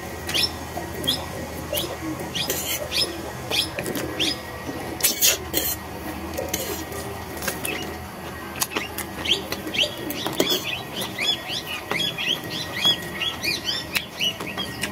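Two people eating instant noodles with forks from steel plates: slurping and chewing, with a few sharp clicks. Over it runs high, quick chirping that grows denser in the second half.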